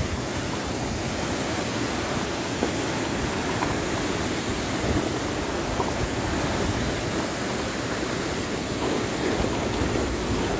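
Steady rush of a fast, muddy mountain river running over rapids, mixed with wind noise on the microphone.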